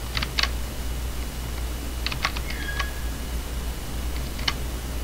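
Computer keyboard keys clicking a few times in small clusters, as in window switching with Alt+Tab, over a steady low hum.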